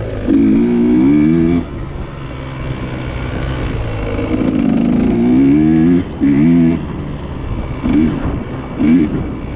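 Dirt bike engine revving in repeated bursts as the throttle is rolled on and off while riding a sandy trail, falling back to a lower running note between bursts. Heard close up from the bike itself.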